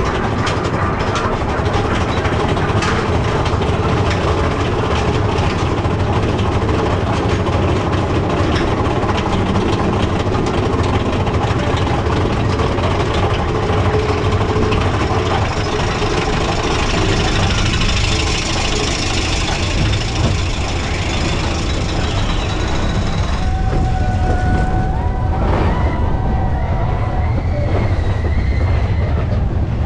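Mine-train roller coaster running along its track, heard from aboard the car: a steady rumble and rattle of wheels and cars. A few short wavering high tones come in over it near the end.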